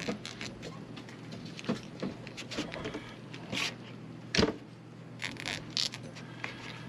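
A knife slicing through a roll of breakfast sausage on a paper plate into thick patties: scattered short scrapes and taps, with one louder knock about four and a half seconds in.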